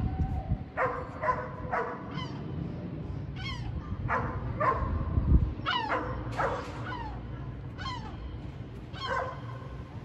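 Gulls calling: about a dozen short, sharp yelping calls, each sliding down in pitch, one or two a second.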